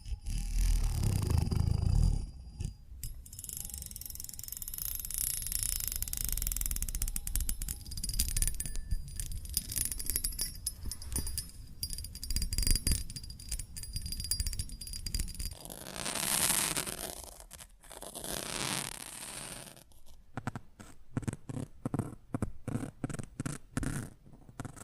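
Close-miked ASMR trigger sounds: a long stretch of scratchy rustling, two longer swishing strokes about two-thirds of the way in, then a run of quick taps near the end.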